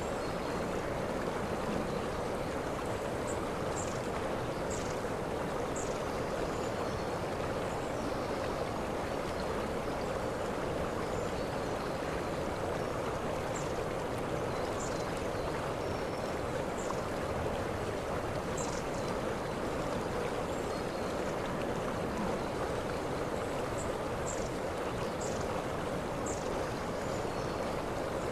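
Waterfall: a steady, even rush of falling water. Short high chirps come through in a few small clusters.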